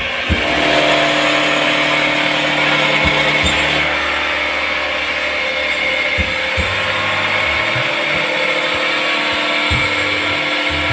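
Automatic wood lathe running and cutting a spinning wood blank: a steady machine hum with a hiss of cutting, broken by a few short low knocks.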